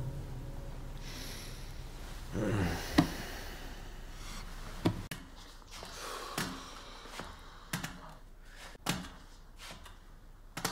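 Forearm crutches knocking on a hard floor as a man walks on them: about six short, uneven knocks, a second or more apart, in a quiet room.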